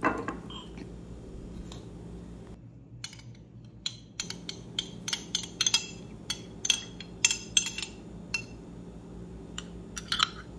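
Metal fork clinking against a glass bowl in quick, irregular light taps while beaten eggs are stirred, starting about four seconds in and returning near the end, over a low steady hum.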